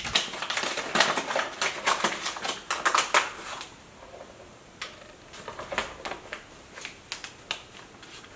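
Flour packaging being handled: a dense run of crinkling and crackling for about three and a half seconds, then only occasional light clicks and taps.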